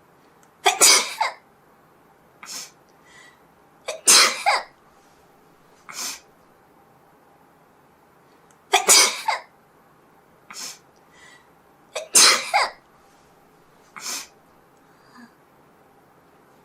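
A person sneezing four times, loudly and about every three to four seconds. Each sneeze is followed a second or two later by a shorter, quieter one.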